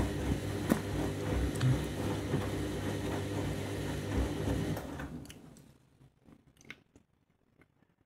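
Candy front-loading washing machine tumbling laundry in foamy rinse water: a steady motor hum with water sloshing and small ticks. About five seconds in it dies away as the drum comes to rest, leaving a few faint clicks.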